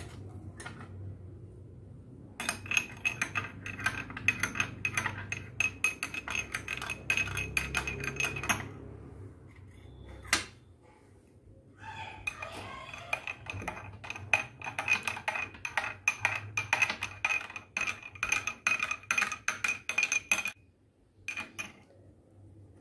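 Metal spoon stirring powder into water in a drinking glass: rapid clinking of the spoon against the glass with a ringing note. Two bouts of stirring of several seconds each, with a short pause between.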